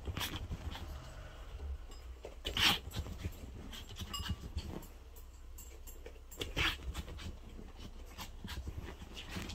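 Small dogs playing and scuffling on a bed, panting, with a string of short rustles and bumps. Two louder short sharp sounds stand out, a little under three seconds in and again about four seconds later.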